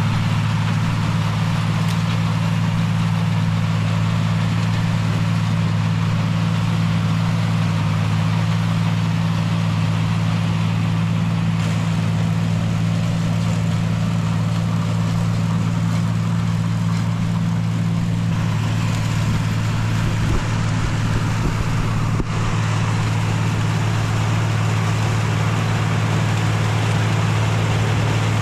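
Tractor engine running at a steady speed with a constant low hum and broad mechanical noise. About two-thirds of the way through, part of the hum drops away, and a couple of light knocks follow.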